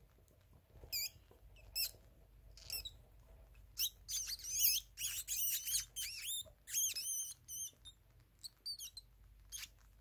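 Pet rats squeaking: short, high, wavering squeaks, a few spread out at first, then coming thick and fast about four to seven seconds in, and tailing off near the end.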